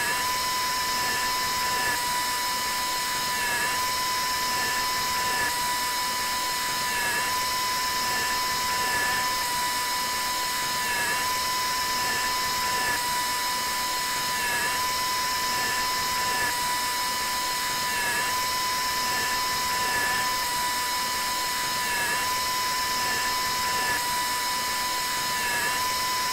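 Dental implant surgical handpiece spinning a pilot drill into a plastic model jaw: a steady high whine with slight dips in pitch about every two seconds.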